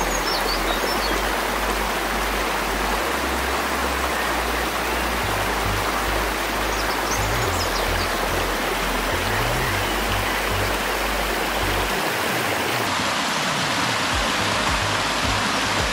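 Small woodland brook splashing steadily down low rocky cascades, with background music's low bass notes underneath.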